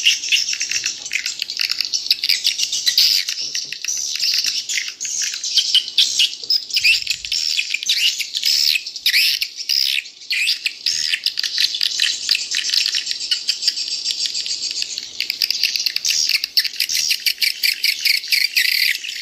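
Recorded swiftlet call sound played back: a dense, unbroken, high-pitched twittering of many edible-nest swiftlets. It is an edited lure track in which two different recordings run together as one.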